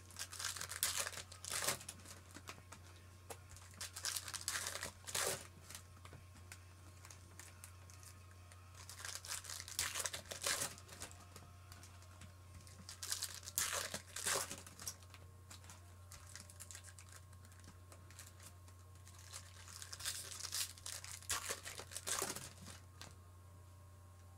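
Foil trading-card packs being torn open and crinkled by hand, in about five crackly bursts a few seconds apart, over a steady low hum.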